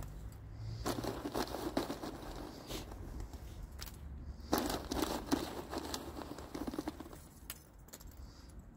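Rustling and crunching of soil and charcoal lumps being handled and spread on a garden bed, in two long stretches with scattered crackles, over a low rumble of wind on the microphone.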